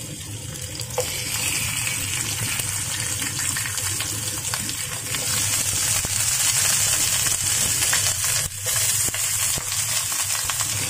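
Raw chicken pieces sizzling in hot cooking oil in a nonstick wok as they are added, a steady crackling hiss with sharp spattering ticks. The frying grows louder about five seconds in as more pieces go into the oil.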